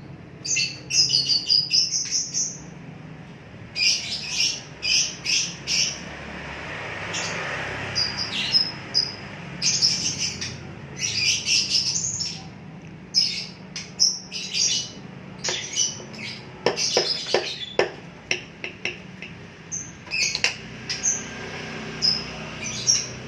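Small bird chirping, short high calls coming in quick runs with brief pauses between them.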